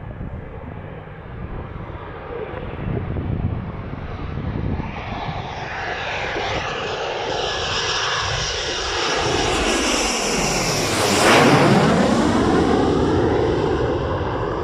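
Panavia Tornado jet flying low past on landing approach. Its engine noise and high turbine whine build to the loudest point about eleven seconds in as it passes, then drop in pitch as it moves away.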